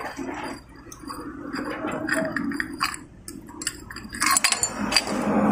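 Small metal hand tool clicking and scraping on the screws of a Skygo 125's round chrome engine side cover as they are unscrewed, with a run of sharper metallic clinks near the end.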